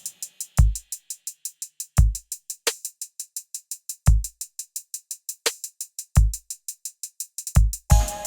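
Hip-hop drum-machine beat with no vocals or other instruments: rapid ticking hi-hats, deep kick drums that slide down in pitch about every two seconds, with a quick double kick near the end, and a snare hit twice.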